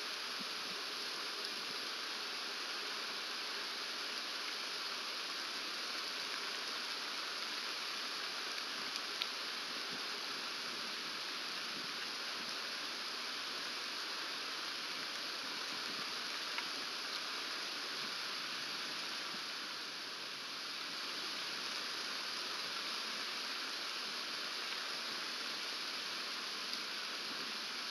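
Steady rain falling through pine trees, an even hiss with a few single sharp ticks of heavier drops.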